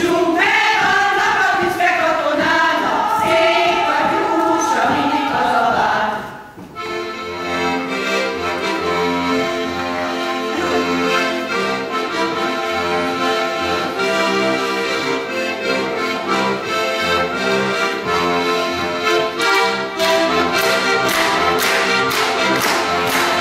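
Women's choir singing a folk song that stops about six seconds in. An accordion then plays the tune alone over a rhythmic bass, and for the last few seconds the singers clap along in time.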